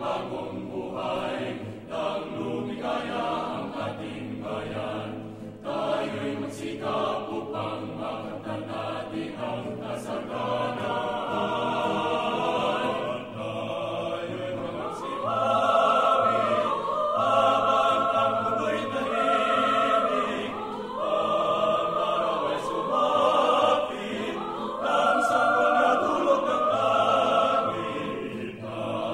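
Background music: voices singing long, held notes in chorus.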